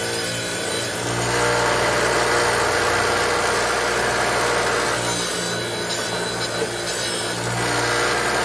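Electric power tool running with a steady hum while it scrubs rust off a steel lawn mower blade. The rough rasping is strong from about a second in, eases after about five seconds, and picks up again near the end.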